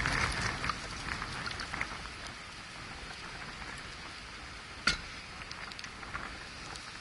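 Wind buffeting the microphone, with a crackling rustle and scattered small clicks; one sharp click about five seconds in.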